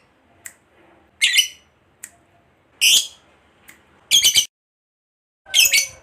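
Lovebird giving short bursts of shrill, high-pitched chattering calls, four in a row about a second and a half apart, with faint clicks in the gaps.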